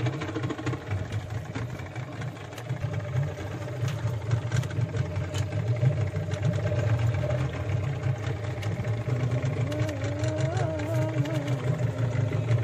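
Fishing boat's engine idling with a steady low rumble.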